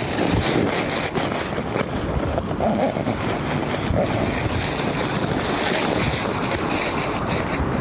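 Wind buffeting the microphone, mixed with the rustle and crinkle of a nylon stuff sack as folded camping gear is pushed into it.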